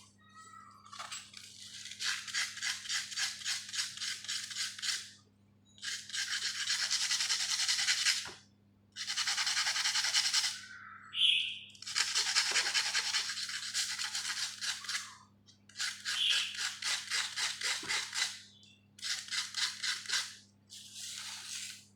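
Rapid back-and-forth rubbing or scraping strokes on a small part, in runs of two to four seconds with short pauses, over a steady low hum.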